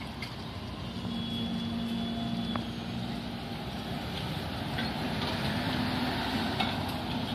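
Road traffic: car engines running, with one car pulling away across the railroad tracks near the end, where the sound grows louder.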